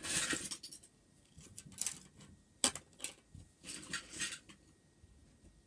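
Lego bricks and plastic pieces being handled and moved about: short rustling bursts and scattered sharp plastic clicks, the loudest click about two and a half seconds in.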